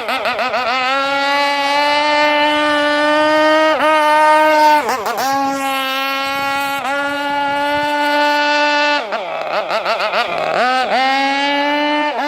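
Zenoah G320PUM 32cc two-stroke engine of a radio-controlled gasoline speedboat running at high revs with a steady high whine. Its pitch dips sharply and recovers several times, and it wavers up and down for a couple of seconds near the end.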